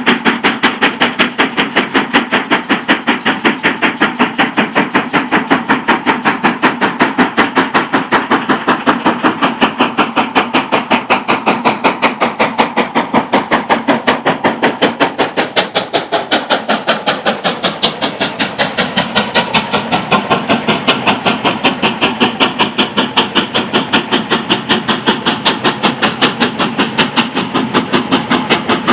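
Steam locomotive working hard on a climb, its exhaust beating in a rapid, even rhythm.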